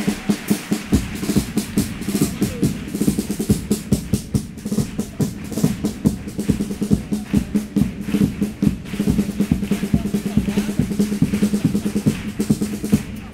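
Instrumental passage from a Cádiz carnival chirigota band: caja snare drum and bombo bass drum beating a fast, busy rhythm over a steady held chord.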